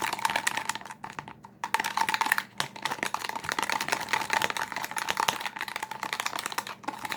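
Back of a paintbrush stirring a thick mix of shampoo-conditioner and salt in a cup: rapid, wet clicking and squelching, with a short pause about a second in. It sounds really gross.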